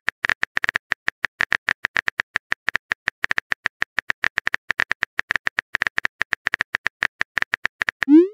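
Smartphone keyboard typing sound effect: a fast, uneven run of short bright clicks, about ten a second, as a long text message is typed out.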